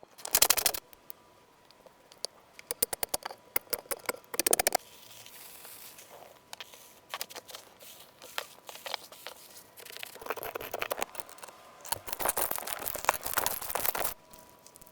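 Slime being handled and pressed, giving irregular runs of sharp crackling clicks and pops, with longer stretches of crackling about ten and twelve seconds in.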